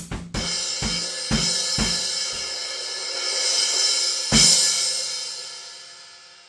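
Drum kit with a Wuhan 13-inch B20 bronze crash cymbal washing over a few drum hits in the first two seconds, swelling, then struck hard once about four and a half seconds in and left to ring and fade away.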